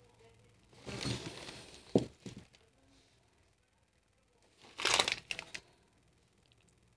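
Plastic wrapping and a plastic parts packet crinkling as they are handled, in short bursts about a second in and again about five seconds in, with a single knock near two seconds.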